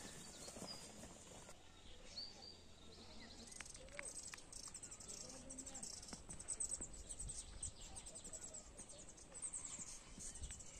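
Faint, high-pitched chirping in quick repeated runs from the forest foliage, starting a few seconds in, with faint distant voices.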